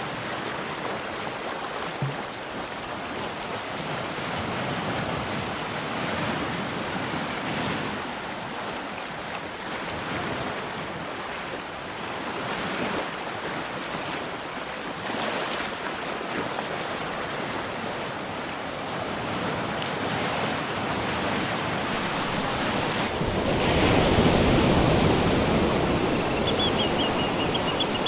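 Ocean surf washing steadily in slow swells. About 23 seconds in it switches to a louder, lower wash of water, and near the end a bird calls in a rapid run of repeated high notes.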